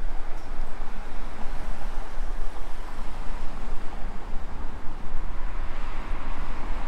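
Wind buffeting a GoPro Hero 9's microphone: a steady low rush whose level flutters constantly, with a broad outdoor noise beneath it.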